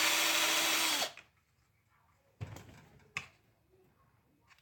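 Power drill running in one burst of about a second, its pitch dropping as it stops, followed by two short knocks.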